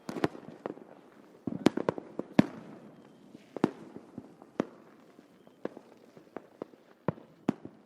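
Distant fireworks: sharp cracks and bangs at irregular intervals over a low rumble. The reports come thickest about one and a half to two and a half seconds in, then thin out to single bangs.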